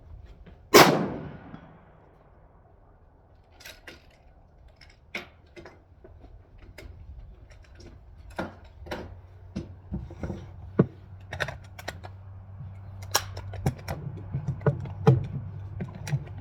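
A single suppressed shot from a PTR rifle in .308 Winchester under a second in, with a short ringing decay. It is followed by scattered clicks and knocks of the rifle being handled.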